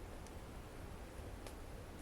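A wood fire burning in a fireplace, crackling faintly, with two sharp pops about a second apart.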